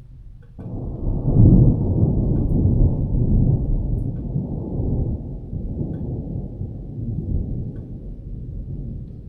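Thunder: a loud rolling rumble that starts suddenly about half a second in, peaks a second later and slowly fades away over several seconds.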